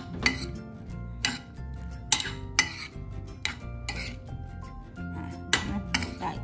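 Metal spoon stirring chunks of egg-coated mushroom in a ceramic bowl, clinking and scraping against the bowl in irregular knocks about every half second to a second. Background music plays steadily underneath.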